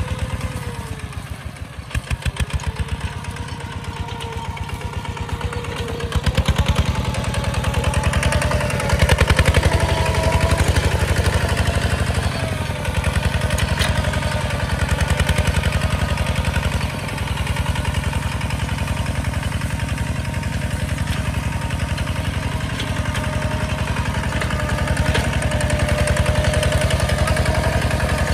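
Single-cylinder diesel engine of a two-wheel walking tractor running under load as it pulls a plough through the soil. The chugging is fast and even, and it gets louder about six seconds in.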